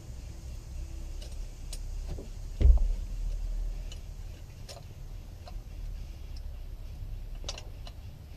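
Scattered small clicks and taps from hands working among the engine's fittings, with one heavy thump about a third of the way in.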